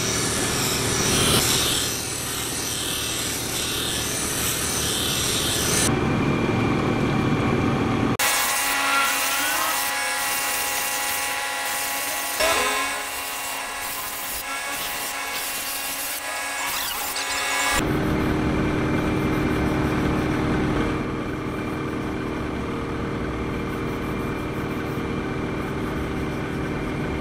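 Electric bench grinder running while a steel straight-razor blade is ground against its spinning wheel: a steady motor hum under the rasp of steel on the wheel. The sound changes abruptly a few times where takes are cut together.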